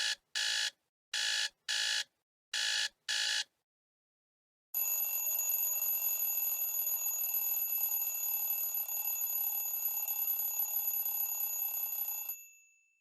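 Two stock Android 2.3 alarm tones from the Samsung Google Nexus S. The first is a beeping alarm, three pairs of short high beeps. After a short gap comes a continuous ringing alarm that lasts about seven and a half seconds and dies away near the end.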